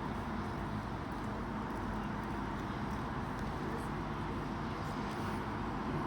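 Steady city-street background rumble with passing traffic, even and unbroken.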